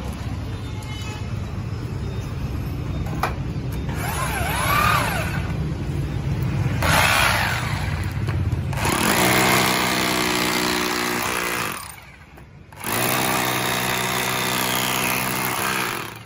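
Harden 800 W rotary hammer drill hammer-drilling into a lump of concrete. It stops briefly about twelve seconds in, starts again, and cuts off near the end.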